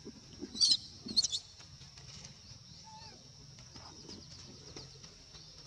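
Two short, high-pitched squeals from young long-tailed macaques, about half a second apart near the start, over a steady high insect drone.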